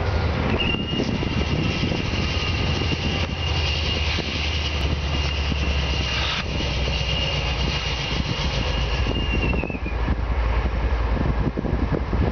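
Two GE diesel-electric locomotives, a CSX ES44DC leading a C40-8, running steadily as they move slowly past, a low, even engine rumble. A thin, steady high squeal sounds above it from about a second in and dips in pitch as it stops near the end.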